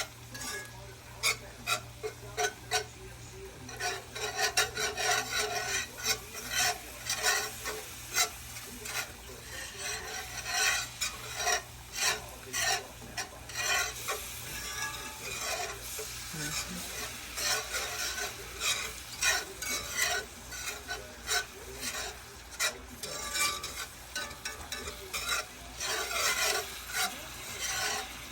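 A spoon or whisk stirring and scraping around a pan in quick, irregular strokes, as broth is stirred into a flour-and-onion gravy.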